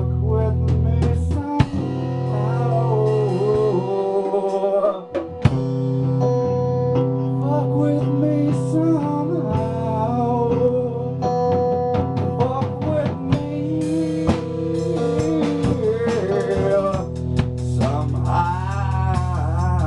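A band plays a blues-rock song: a Stratocaster-style electric guitar over a drum kit and bass, with a man singing into a microphone.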